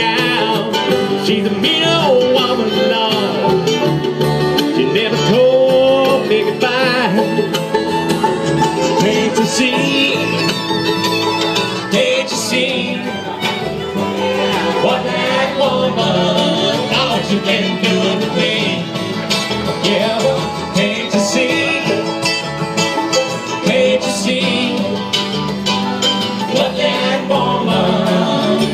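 A live bluegrass band playing at an even tempo, with banjo, fiddle, acoustic guitar, mandolin and upright bass.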